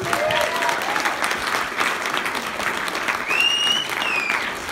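A room of guests applauding, a dense patter of many hands clapping.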